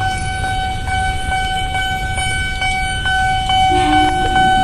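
Railway level-crossing warning alarm sounding: a steady ringing tone pulsing about twice a second, over the low rumble of idling motorcycles and traffic. A short low horn blast sounds near the end.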